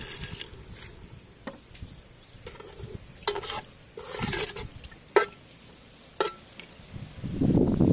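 Metal ladle stirring soup in a large aluminium pot, with a few sharp clinks of the ladle against the pot, the loudest two about five and six seconds in and ringing briefly. Water poured from a ladle into the pot trails off at the start, and a louder low sound comes in near the end.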